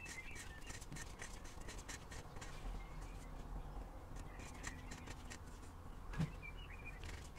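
Oil filter housing being screwed onto its threads by hand: faint, irregular scratching and light clicks, with one sharper knock about six seconds in.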